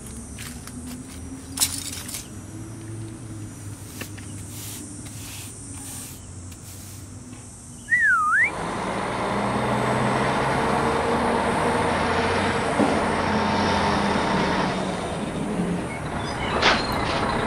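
A heavy truck engine running with a steady low rumble, starting about halfway through just after a short wavering whistle. Before it there are only a few light clicks.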